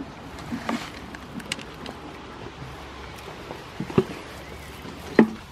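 Goats moving about: a few scattered knocks and taps over a faint steady background, the loudest about four seconds in and again near the end.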